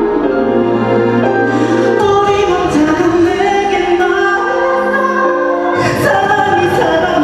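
Live concert performance of a Korean pop ballad: sung vocals held over full band accompaniment, with a crash about six seconds in.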